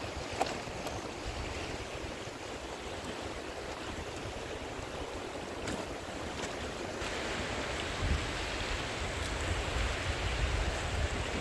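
Steady rush of flowing stream water, getting louder and brighter about seven seconds in, with a low rumble joining about a second later.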